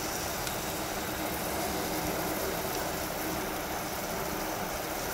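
Steady rushing noise of a lit gas stove burner under a pot of onions and spices cooking.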